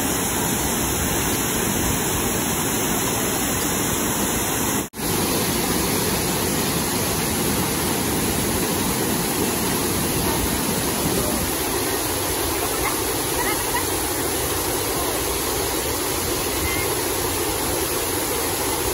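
Waterfall pouring over a rock ledge into a shallow pool: a loud, steady rush of falling water that cuts out for a moment about five seconds in.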